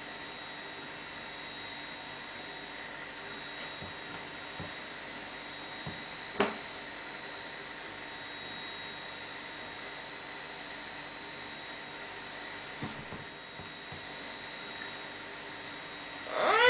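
Steady background hiss with a faint high whine, broken by one sharp knock about six seconds in and a few fainter taps. Just before the end a baby starts to cry, a high wavering wail that quickly grows louder.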